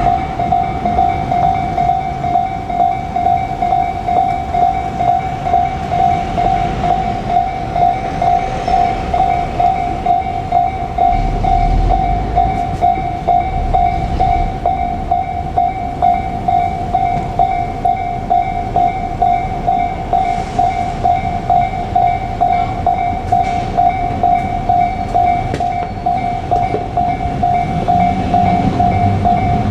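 Japanese level-crossing warning bell ringing: one steady, evenly repeated electronic clang. Underneath, the low rumble and wheel clatter of a JR Kyushu 817-series electric train swell as it runs through the crossing.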